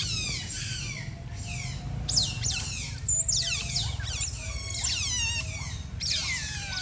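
Otter chirping: rapid clusters of high-pitched squeaks, each sliding downward in pitch, repeated throughout.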